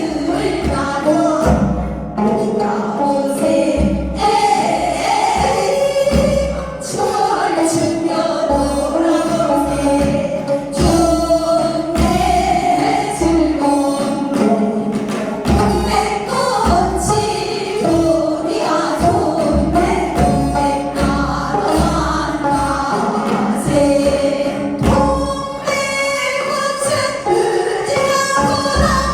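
Korean folk song (minyo) sung with instrumental accompaniment, the voices held over a low beat that comes about every two seconds.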